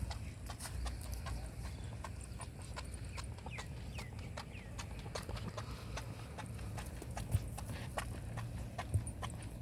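Irregular light clicks and taps over a low, steady rumble, with a few faint short chirps about three seconds in.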